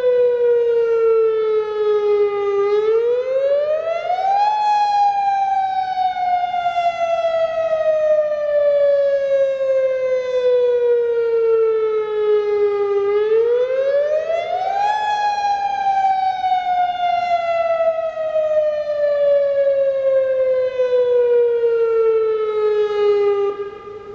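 Federal Signal DSA directional speaker array, an electronic outdoor warning siren, sounding a slow wail. The pitch rises quickly over about two seconds and then falls slowly for about eight seconds, twice, before cutting off near the end.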